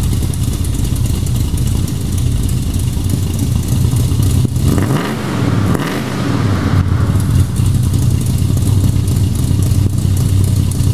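1969 Dodge Charger R/T's 440 big-block V8 running at a loud, steady idle, with two brief throttle blips about halfway through.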